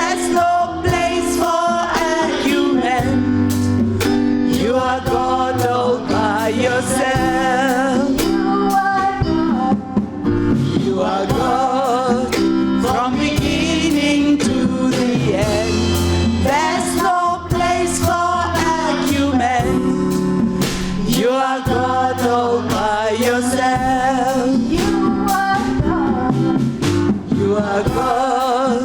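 Live gospel music: voices singing with vibrato over a band with bass and a steady drum beat.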